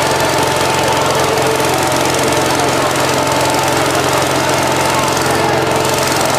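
Firefighters' foam generator running with a steady, loud mechanical drone as it blows out foam.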